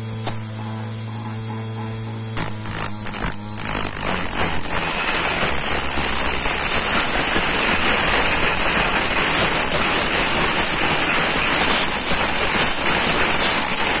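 Hand-made 12-volt key cutting machine. Its motor runs with a steady hum, and a few brief scrapes come about two and a half seconds in. From about four seconds on there is a continuous, louder grinding with a high whine as the cutter wheel cuts into the key blank.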